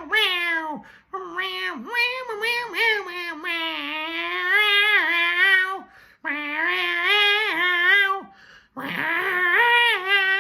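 A man's voice meowing and screeching in a high, cat-like falsetto, sung as a tune with no backing music: about four drawn-out phrases whose pitch bends and is held, with short breaks between them.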